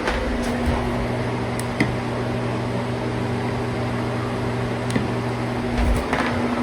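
Steady low electrical hum over a background hiss, with a few faint clicks. The lowest tone of the hum drops out near the end.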